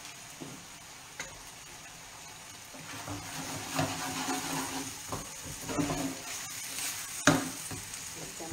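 Farro gnocchetti sizzling in a frying pan, stirred and scraped around the pan with a wooden spoon from about three seconds in. A sharp knock comes near the end.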